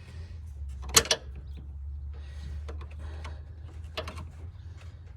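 Screwdriver clicking and scraping against the rubber upper radiator hose, its clamp and the plastic fan shroud, while the hose is pried onto its fitting. Two sharp clicks come close together about a second in, and another comes near four seconds, over a steady low hum.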